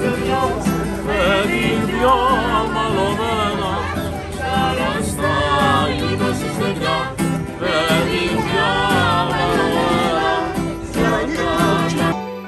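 Live folk music: singers accompanied by strummed acoustic guitar and accordion, the voices wavering with vibrato. Near the end it cuts abruptly to quieter background music.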